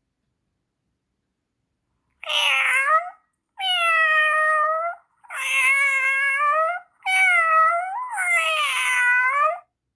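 Domestic cat meowing: about five long meows in a row, starting about two seconds in.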